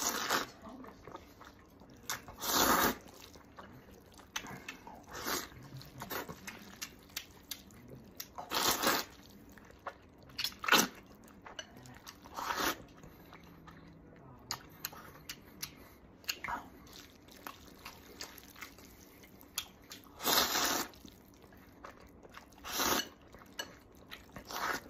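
A person slurping noodles and chewing. Several loud slurps, each under a second, come every few seconds, with soft wet chewing clicks in between.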